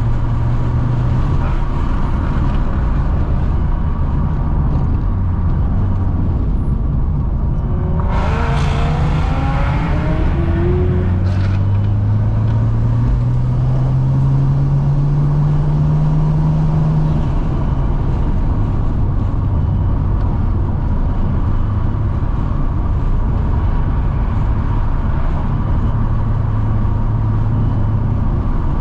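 Car engine droning at a steady cruise. About eight seconds in there is a brief rush, then a long acceleration in which the engine pitch climbs for about nine seconds before it drops back to a steady cruise.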